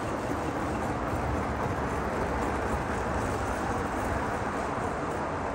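Gauge 1 model freight train rolling past on its track, a steady running noise from the wagons' wheels on the rails.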